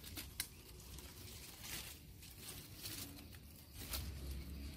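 Faint rustling of leaves and twigs with a few light clicks, the sharpest two near the start, and a low rumble near the end.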